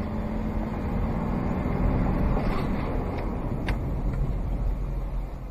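Engine and road noise of a moving vehicle heard from inside its cabin, with a steady low drone that fades about halfway through. A few light ticks or rattles follow in the second half.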